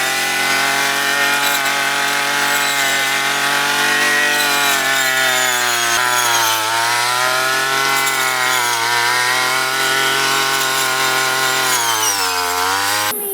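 Small 35 cc petrol engine of a handheld rice harvesting machine running at high speed, a steady buzzing drone whose pitch wavers and sags briefly about six seconds in and again near the end.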